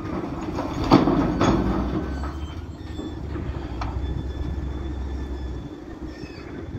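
Rock tipping from a wheel loader's bucket into a steel dump truck bed, crashing down with two sharp crashes about a second in and half a second later. Then the loader's diesel engine runs steadily as the emptied bucket lifts clear.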